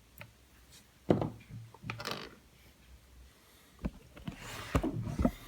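A few separate small knocks and clicks of padlock parts and tools being handled and set down on a hard surface.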